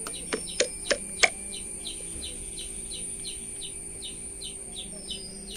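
A bird chirping steadily, a short falling chirp repeated about three times a second. Four sharp clicks come in the first second and a half, over a faint steady high whine and low hum.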